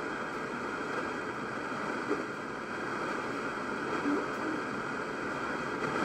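Worldstar MBR-1 multi-band radio's speaker giving a steady static hiss, with faint, broken voice fragments under it: a weak signal or the gap between stations.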